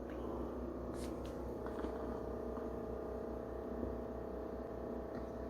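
Steady low electrical hum, with a couple of faint ticks about a second in.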